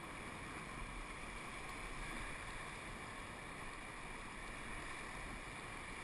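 Steady rush of whitewater rapids heard from a raft on the river.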